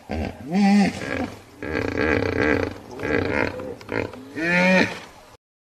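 Hippopotamus calling: a run of deep honking grunts, with a loud rising-and-falling honk about half a second in and another near the end, then the calls cut off suddenly.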